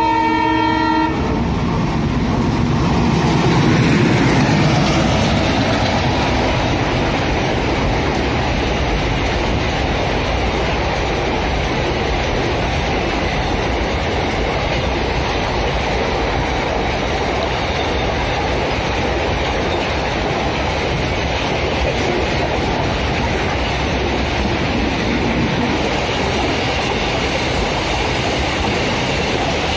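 Freight train passing close by: a short horn blast right at the start, the locomotive loudest about four seconds in, then the steady noise of its container wagons rolling past on the rails.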